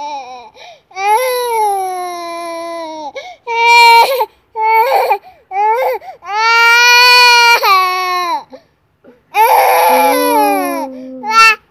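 Young child crying loudly in a run of high-pitched cries broken by short breaths. The longest and loudest cry comes about six seconds in and lasts around two seconds.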